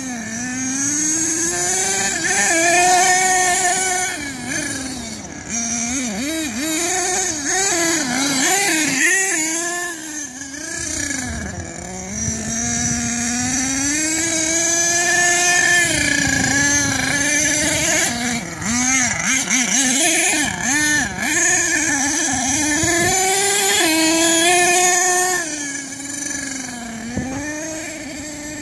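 HPI Savage 4.6 nitro RC truck's small two-stroke glow engine running hard, its pitch rising and falling over and over as the throttle is opened and eased, with deeper dips about a third of the way in and near the end.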